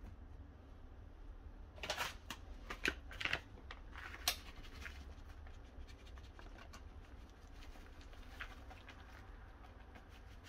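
Packet of powdered sugar handled and shaken over a waffle: a cluster of sharp crinkles and clicks about two to four seconds in, then fainter scattered ticks and rustles.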